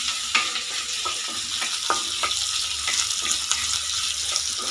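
Chopped onions and capsicum sizzling in hot oil in a steel kadai, stirred with a wooden spatula that scrapes and knocks against the pan at irregular intervals over a steady hiss.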